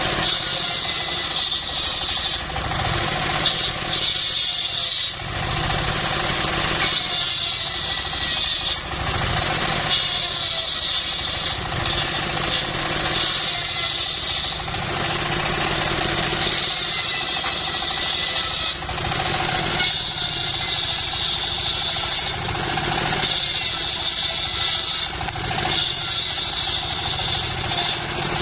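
Engine-driven homemade circular sawmill running steadily, with a high whine that comes and goes in stretches of one to three seconds as the blade cuts through wood.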